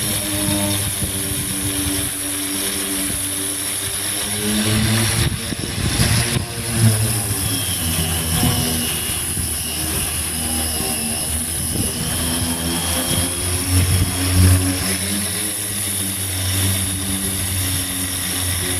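A motor running steadily throughout, its pitch wavering slightly, with a steady high whine above it.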